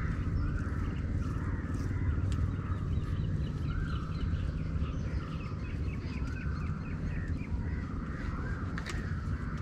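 Crows cawing again and again, with a steady low rumble underneath.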